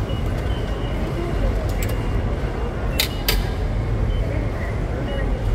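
Short, faint high beeps from a reserved-seat ticket vending machine's touchscreen as its buttons are pressed, with two sharp clicks about three seconds in, over a steady low background rumble.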